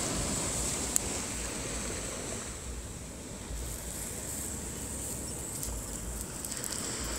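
Wind gusting on the microphone over a steady wash of surf, with a single sharp click about a second in.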